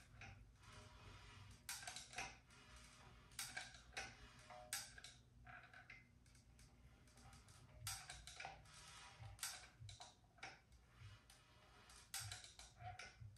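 Faint, irregular clicks of a caulking gun's trigger, squeezed in short clusters while a silicone bead is laid along the seam of a three-piece wheel. A low steady hum runs underneath.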